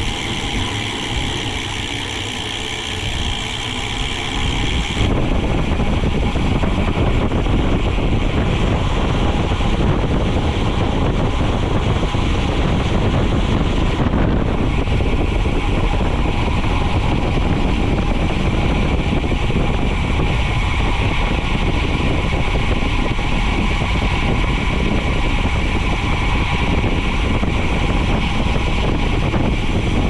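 Wind rushing over the microphone of a camera riding along on a bicycle at speed, an even roar that becomes louder about five seconds in and then holds steady.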